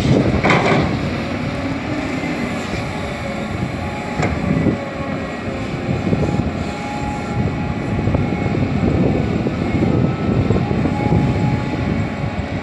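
Caterpillar 320D excavator's diesel engine running steadily under load while it works, with a clatter about half a second in and a sharp knock about four seconds in.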